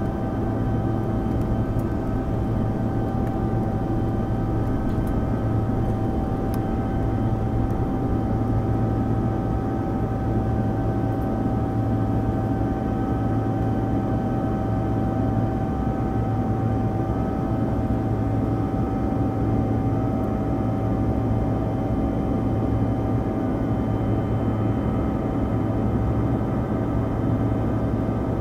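Cabin noise of a Bombardier CRJ200 regional jet in flight. Its two rear-mounted General Electric CF34 turbofans and the airflow make a steady low drone, with a few steady whining tones above it.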